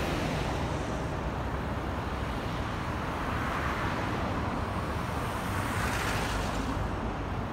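Steady road traffic noise, a continuous rush of passing cars that swells a little about four and six seconds in.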